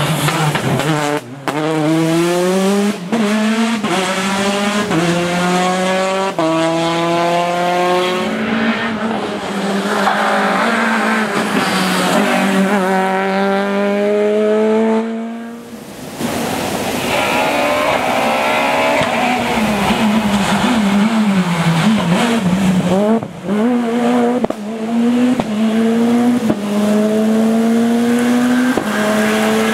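Rally cars accelerating hard on a wet tarmac stage, the first a Peugeot 208 T16 R5 with its turbocharged 1.6-litre four-cylinder. Each engine note climbs and drops back at quick upshifts, many times over. The sound breaks off briefly about halfway through, and a second car follows, pulling through the gears the same way.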